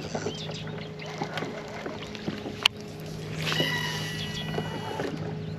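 Steady low hum of a fishing boat's motor, with one sharp click a little before the middle and a louder hiss from just past halfway.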